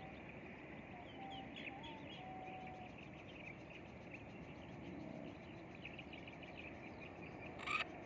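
Faint chirping of small birds in the background: many quick high chirps, with a few short whistled notes in the first few seconds. A brief louder sound comes near the end.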